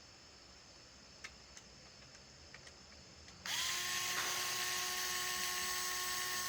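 A few faint clicks, then about three and a half seconds in a small electric screwdriver spins up and runs with a steady whine while backing out the Phillips-head screws of the shotgun's housing.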